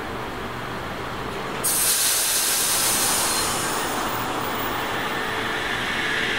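Sydney Trains OSCAR electric multiple unit pulling away from a station platform: a steady rumble, then a sudden loud hiss about two seconds in that carries on, and near the end a rising whine as the train gathers speed.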